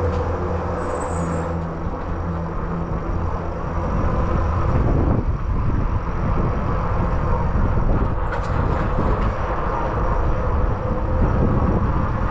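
Tyres rolling on a concrete drain floor, with wind rushing over a helmet-mounted microphone. A steady low hum in the concrete tunnel at first gives way, about four seconds in, to broader rushing noise in the open channel.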